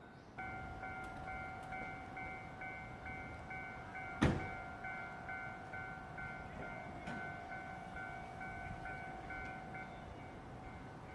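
Japanese level-crossing warning alarm ringing, a repeating electronic ding about twice a second, over a low rumble. One loud knock about four seconds in.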